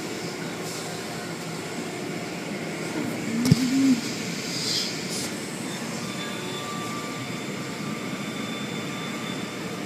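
Car wash machinery running with a steady rushing noise. About three and a half seconds in there is a click with a short low tone, a second later a brief hiss, and a faint steady whine sets in past the halfway point.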